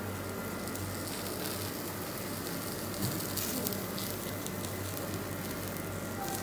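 Dried red chillies, coriander seeds, halved shallots and curry leaves sizzling softly in a little oil in a large metal pot as they roast, with faint scattered crackles. A steady low hum runs underneath.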